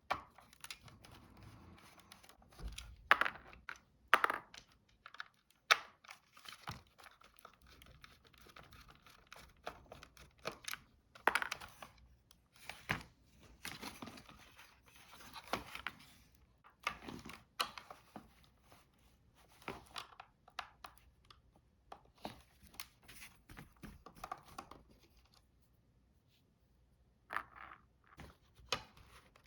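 Plastic parts of a Dyson V6 vacuum cleaner head being handled by hand: irregular sharp clicks and knocks with rustling and scraping in between.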